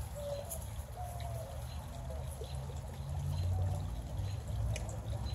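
Outdoor ambience: a steady low rumble with faint, short bird chirps scattered through it and a few brief high ticks.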